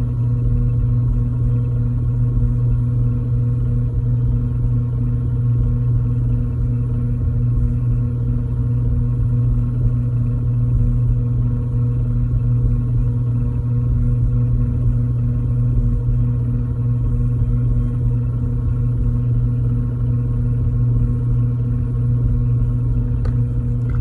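Electric pottery wheel motor humming steadily as the wheel head spins at a constant speed, a low even hum with a few fainter higher tones over it.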